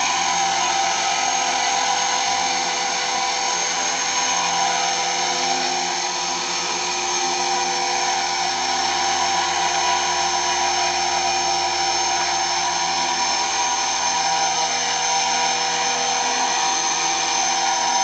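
KDS 450S electric RC helicopter in a hover: the electric motor and drive train give a steady high whine, with slight wavers in pitch.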